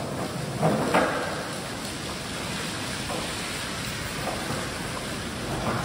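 Steady rain falling on pavement, with two sharp knocks from a skateboard about a second in.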